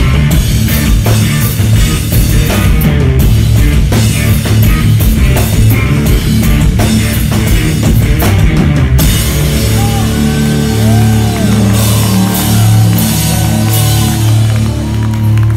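Rock band playing live and loud: drum kit with crashing cymbals, bass guitar and electric guitar. About nine seconds in, the busy drumming and cymbals drop back and the band holds long, sliding notes over a sustained bass.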